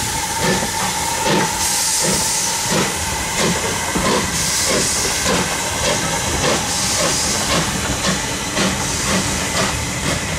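BR Ivatt class 2MT 2-6-2 tank locomotive pulling a train away: steam hissing in bursts over a run of regular exhaust beats that quicken, while the coaches roll past.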